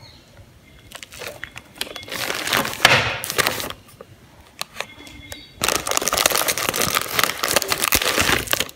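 Clear plastic packaging bag crinkling and rustling as it is handled, in a few short bursts and then louder and continuous over the last three seconds, with a few sharp clicks in between.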